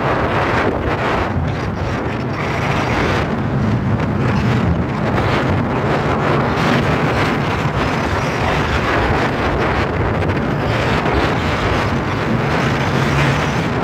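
Steady, heavy wind noise on the microphone, with the rumble of an Inmotion V11 electric unicycle's tyre rolling fast over a gravel trail.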